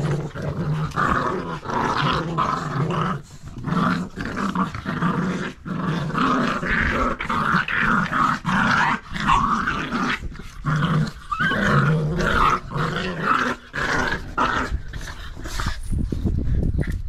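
Staffordshire bull terrier puppies and their mother growling in play during a tug-of-war over a toy, in bursts that follow one another with only short breaks.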